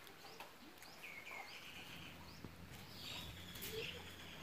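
Faint chirping of small birds, short rising high chirps about twice a second with a few longer high notes, over a low hum in the middle.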